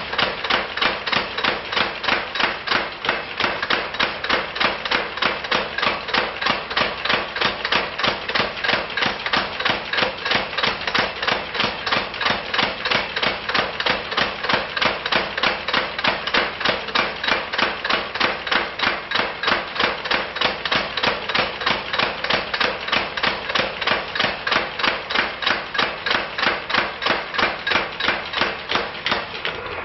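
Power hammer pounding a spring swage in a steady, fast rhythm of metal-on-metal blows, about three to four a second, as it swages a round tenon on a red-hot steel bar.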